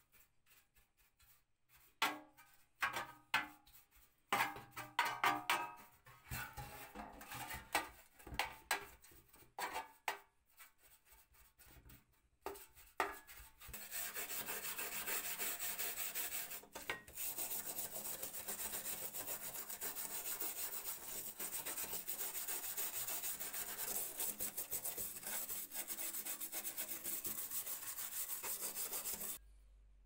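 Hand brush scrubbing rust and dirt off the heater's sheet-metal parts: scattered short scrapes at first, then fast, continuous back-and-forth scrubbing from about halfway through, stopping just before the end.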